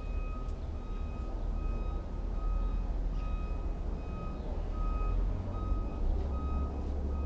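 Vehicle reversing alarm beeping steadily at one pitch, about once every 0.7 s, over a continuous low rumble.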